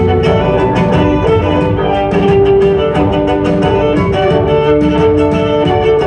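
A violin and a cello playing together, with bowed notes held and changing in a melodic line over a lower cello part.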